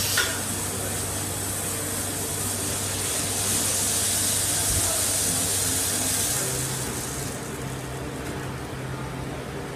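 Coffee roastery machinery running: a steady low hum that steps up slightly in pitch about six seconds in, under a rushing air hiss that swells in the middle and fades near the end.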